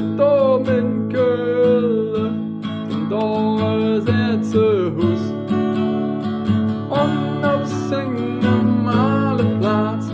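Acoustic guitar strummed in a steady rhythm while a man sings a carnival song melody over it, holding and sliding between notes.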